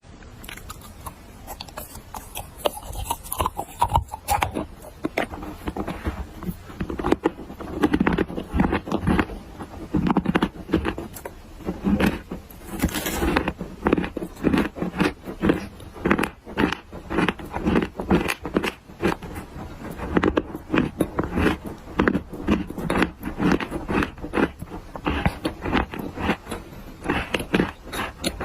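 Dry black clay being bitten and chewed, with many irregular crisp crunches and crumbling crackles.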